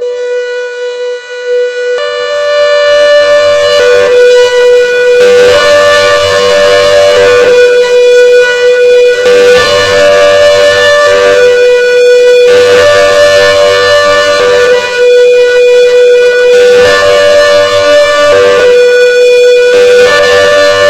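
CS8 siren sounding its hi-lo pattern: two steady tones alternating about every two seconds. It grows louder over the first few seconds, then holds steady.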